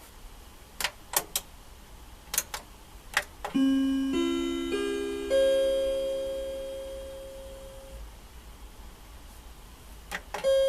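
Built-in paging chime of a Panasonic WA-930 PA amplifier playing its normal call chime: four notes rising one after another, each ringing on and slowly fading. A few sharp clicks come before it, and more near the end.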